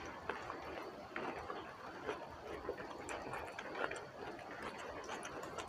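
A person chewing a mouthful of rice and raw coriander leaves, with many small wet clicks and smacks close to a clip-on microphone, and fingers picking at food between bites.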